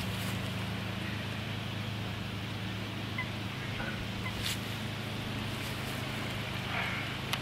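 Eurasian coots calling with a few short notes during a territorial chase on the water, with a brief splashing near the end as one coot runs across the surface. A steady low hum and wind noise run underneath.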